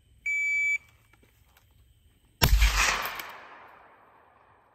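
A shot timer beeps once for about half a second as the start signal for a timed drill. About two seconds later comes a single rifle shot, its echo fading over the next two seconds.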